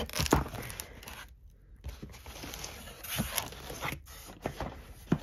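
Cardboard shipping box opened by hand: flaps and packaging scraping and rustling in irregular strokes, with a few sharp knocks as the boxed figures inside are handled.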